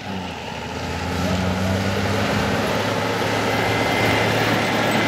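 Caterpillar motor grader's diesel engine running under load as its blade pushes through deep snow, getting louder over the first second and then holding steady.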